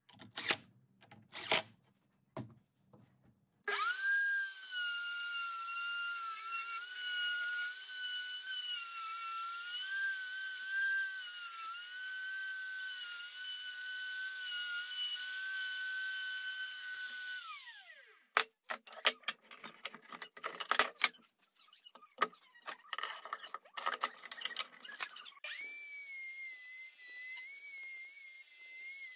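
A couple of short bursts from a cordless impact driver driving screws, then an electric router whining at high speed as its bit cuts into oak, the pitch wavering a little under the load. About 17 seconds in the router winds down with a falling whine. Scattered clicks and knocks follow, and near the end the router whine starts again at a higher pitch.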